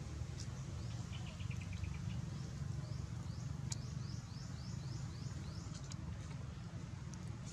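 A bird calling: a quick run of short notes, then a string of about a dozen short downward-sliding chirps, two or three a second, over a steady low rumble.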